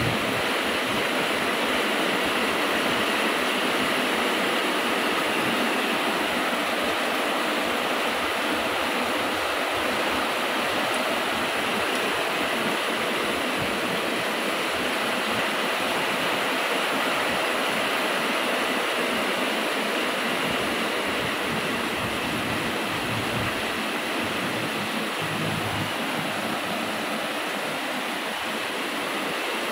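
Heavy rain pouring steadily onto rooftops and foliage: a constant, even hiss of rainfall.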